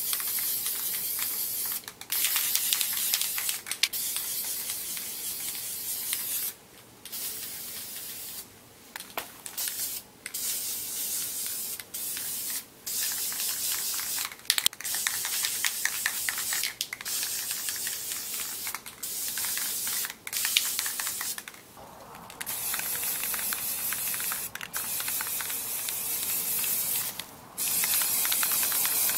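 Rust-Oleum aerosol spray paint can hissing in a string of sprays, each a second to a few seconds long, broken by many short pauses.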